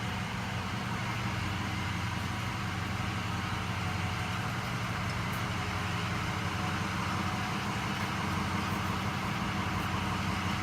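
A motor vehicle's engine running steadily, a low even hum with road or wind noise over it and no sudden changes.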